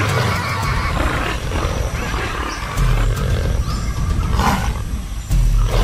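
Jaguar growling and roaring while fighting giant otters, loud and rough, with two sharp cries about four and a half seconds in and near the end.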